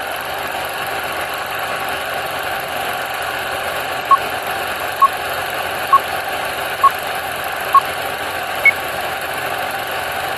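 Steady static hiss with electronic beeps: five short, identical beeps about a second apart, then one higher-pitched beep, like a countdown.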